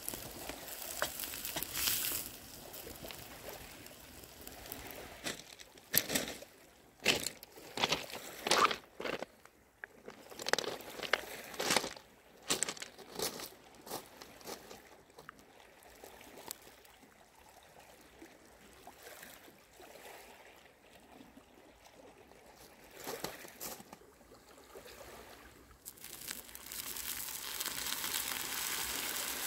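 Leeks frying in an iron pan over an open fire, stirred with a wooden spoon. In the middle comes a run of sharp clicks and crunches. Near the end pre-soaked peas go into the pan and it sizzles steadily.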